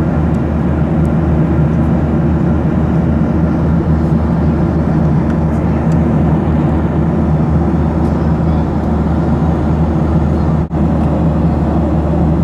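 Steady cabin noise of a jet airliner in flight, the turbofan engines and airflow making a continuous low hum and rush. It drops out for an instant near the end.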